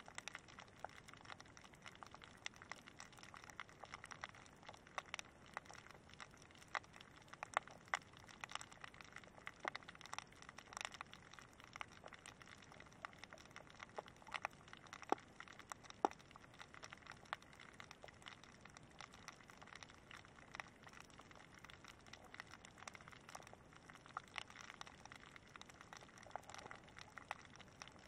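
Faint underwater crackle: many irregular sharp clicks over a low hiss, heard through a camera lying on a shallow sandy, rocky seabed.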